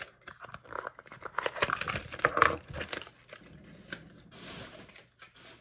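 Small toy packaging being handled and opened: crinkling and rustling with scattered clicks, and a short rustle about four and a half seconds in.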